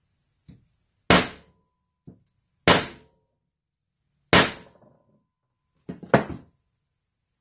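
Claw hammer striking a bent check-valve eyelet from an air compressor against a workbench to flatten it: four hard blows about a second and a half apart, with light taps in between. A short metallic ring follows some blows.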